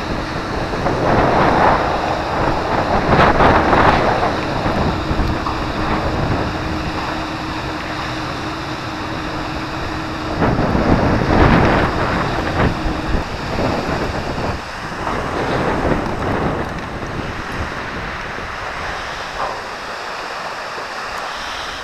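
Strong wind buffeting the microphone over choppy river water lapping at a small aluminium boat's hull, swelling louder in gusts twice.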